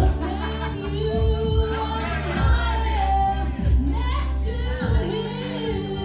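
Karaoke: a singer's voice over a loud backing track with a steady bass line, played through a bar's sound system.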